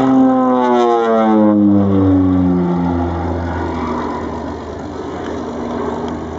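OV-10 Bronco's twin turboprop engines and propellers flying past: a loud droning whose pitch falls over about the first three seconds, then a steadier, lower drone as the aircraft draws away.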